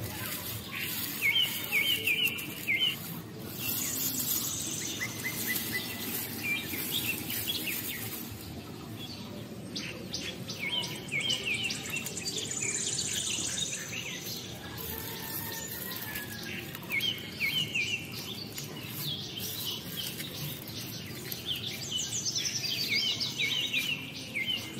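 Birds chirping and singing, one repeating the same short rapid phrase of chirps every five or six seconds, with thinner high chirps between.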